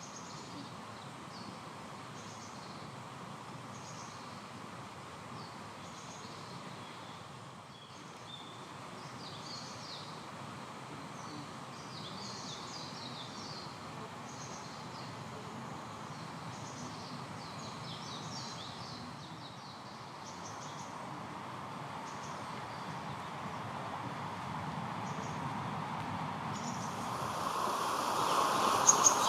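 Small birds giving short, high chirps again and again over a steady background hiss of outdoor ambience, which grows louder over the last few seconds.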